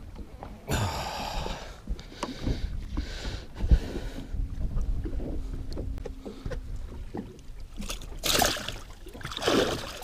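Water splashing and sloshing as a hooked northern pike is brought alongside a fishing boat and scooped into a landing net, with several splashy bursts. A single loud thump comes a little under four seconds in.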